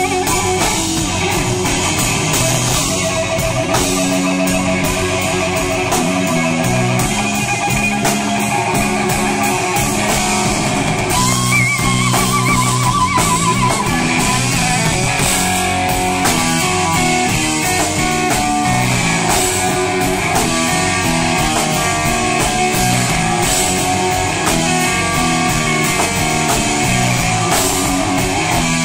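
Live blues-rock band: a Les Paul-style electric guitar plays to the fore over a drum kit, with a warbling held note about twelve seconds in.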